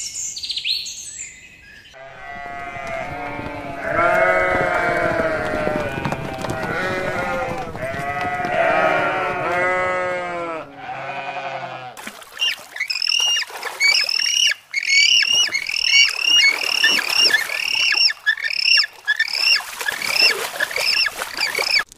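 A large flock of sheep bleating, many voices overlapping, for about ten seconds. Then high, short bird chirps repeat about twice a second over a steady hiss.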